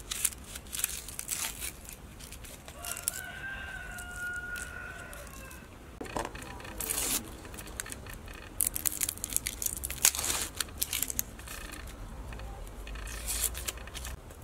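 Dry onion skin crackling and tearing as it is peeled off and scraped with a knife, in short bursts of strokes. A rooster crows once for about two and a half seconds a few seconds in.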